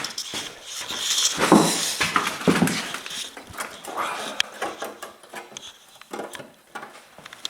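Sheet-steel repair piece being pushed and worked into place in a Land Rover Discovery 2 wheel arch for a test fit: irregular knocks, taps and scraping of metal on metal.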